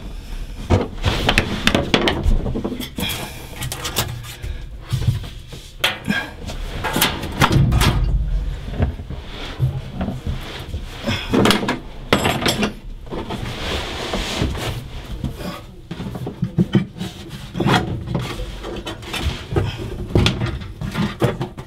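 Irregular knocks, clunks and rubbing scrapes as hoses, cables and fittings are handled and worked into place by hand around a boat engine.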